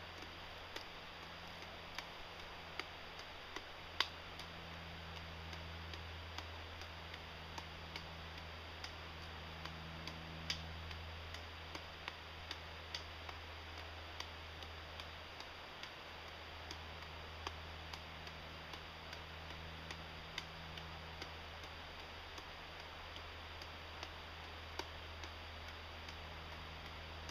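Three juggling clubs being thrown and caught in a mills mess pattern: faint, irregular clicks and taps a few times a second as the handles land in the hands, over a steady low hum.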